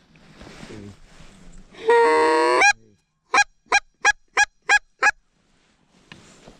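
Goose call blown by a hunter: one long drawn honk, then six short clucking honks in quick succession, each cracking upward in pitch at its end.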